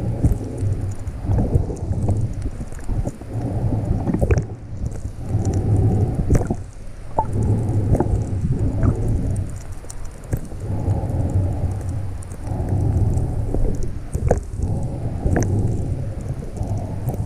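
Muffled rush of water and breathing picked up by a GoPro mounted on a full-face snorkel mask underwater, swelling and fading every second or two, with scattered sharp clicks.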